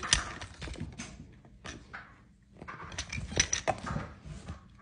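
Plastic toy tools clicking and clattering irregularly as a capuchin monkey handles them and rummages through a plastic toy toolbox, with a busier run of knocks about three seconds in.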